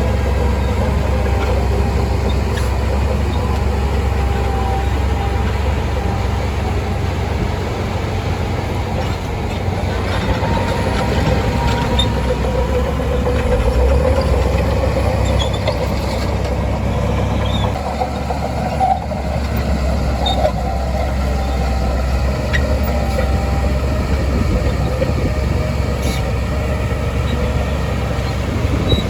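Shantui DH17C2 bulldozer's diesel engine running steadily as it works, a continuous low rumble with a fainter wavering whine above it.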